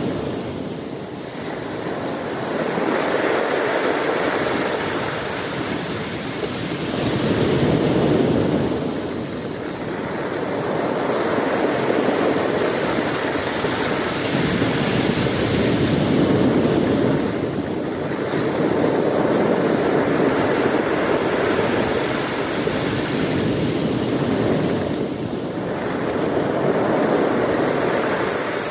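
Ocean waves breaking and washing on a shore, a continuous surf noise that swells and recedes every few seconds.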